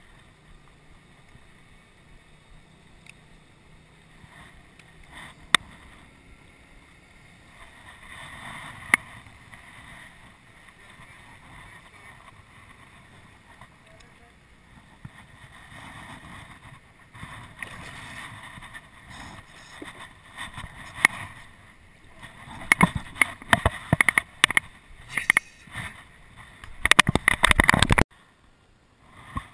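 Handling noise on a small boat: a few isolated knocks, then a run of loud, irregular knocking and rattling that stops abruptly near the end.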